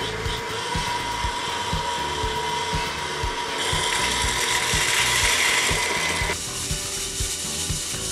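Freshly roasted coffee beans rattling as they are tipped from a small electric roaster into a metal colander and tossed to cool. The rattle is loudest for a few seconds in the middle, then settles back.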